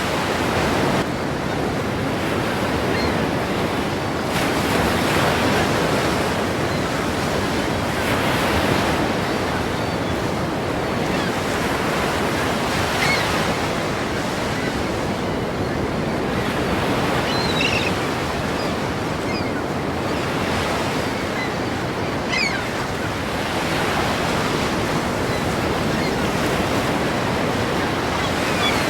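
Ocean waves breaking and washing in a continuous surf, swelling and easing every few seconds.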